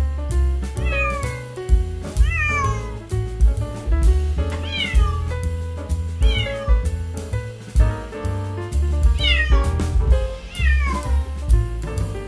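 Kitten meowing about six times, each call high and falling in pitch, over background music with a steady beat and bass.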